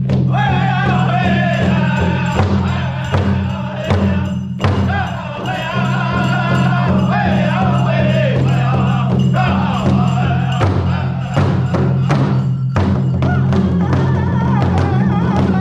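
Powwow drum group: several men singing together in a high, wavering chorus while beating one large shared drum in a steady pulse with drumsticks.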